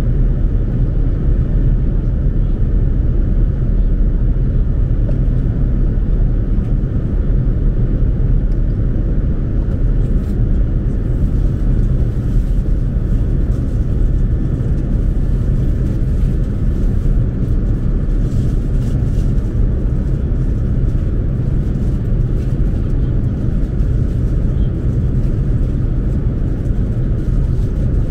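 Steady low rumble of an Airbus A380 cabin in cruise: engine and airflow noise, even and unbroken.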